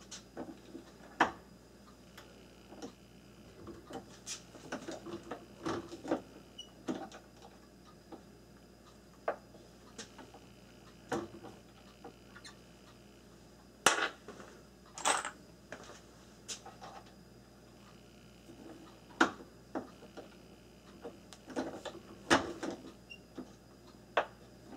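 Scattered metallic clicks and clinks, with a few louder knocks, as cartridges are set in the shell holder of a turret press and a collet-style bullet puller is worked to pull the bullets from crimped rifle rounds.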